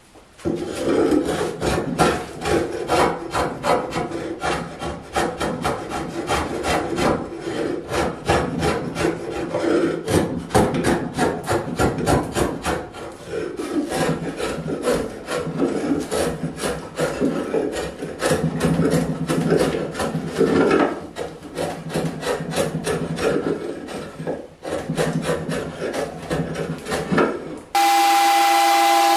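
A drawknife scraping along the live edge of an oak slab in quick, repeated strokes. Near the end it cuts off abruptly and a random orbital sander starts with a steady hum.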